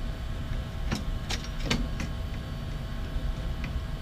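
Three light clicks of small metal parts being handled as a bolt, wheel and washer are fitted by hand to an aluminium bed-frame plate, over a steady low hum.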